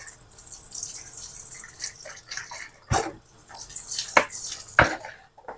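Liquid poured in a thin stream from a bottle into a pan of simmering gravy, splashing and dripping, with three sharp taps in the second half.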